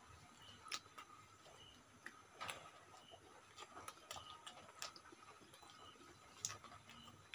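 Quiet eating sounds: irregular wet mouth clicks and smacks of people chewing roti and chicken curry, a second or so apart.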